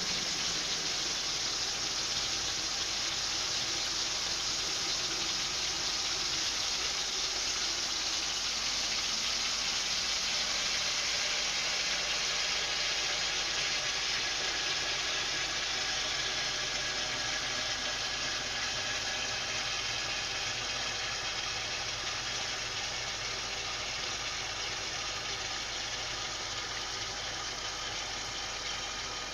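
Washing machine at the start of its wash cycle, water running in to fill the drum with a steady hiss.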